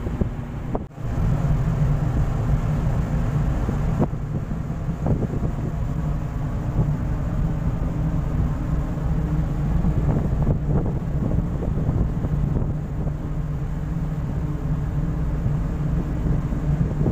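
A ship running at sea: a steady low engine hum with wind buffeting the microphone. The sound drops out briefly about a second in.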